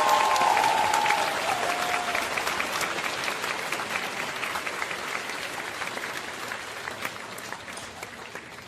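Crowd applause, a dense patter of clapping that fades steadily away.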